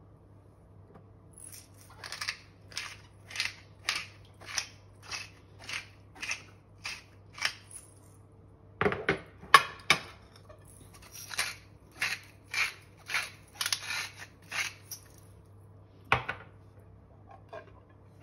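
Hand-twisted salt and pepper mills grinding over a bowl: rhythmic crunching strokes about two a second in two runs, with a few sharper knocks between the runs about nine seconds in.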